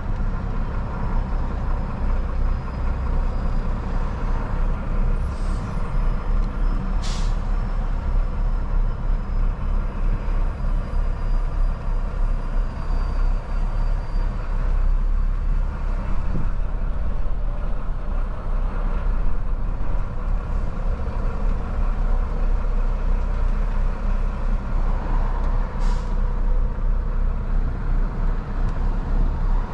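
Tractor-trailer's diesel engine running with a steady low drone as the truck crawls along at about 5 km/h. A few brief sharp sounds rise above it, the clearest about seven seconds in and near the end.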